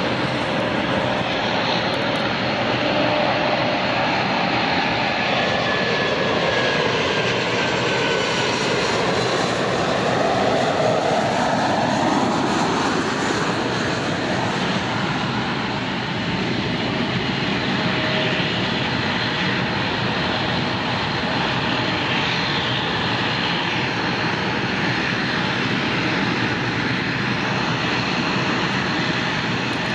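Embraer E190 jet airliner's engines running as it passes close by on its landing approach. A steady loud jet noise with a sweeping change in tone midway as it goes past.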